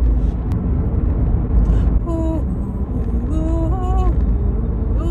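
Low, steady rumble of a moving car heard inside the cabin. About two seconds in, a woman starts singing, holding long notes that step up and down in pitch.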